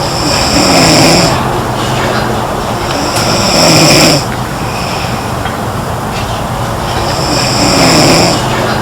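A girl snoring: three snores about three to four seconds apart, each lasting about a second, over a steady low background noise.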